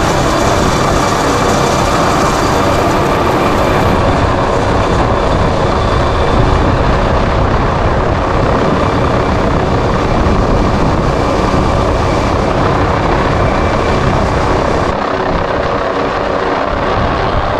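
Rescue helicopter hovering close overhead during a hoist operation: loud, steady rotor and turbine noise.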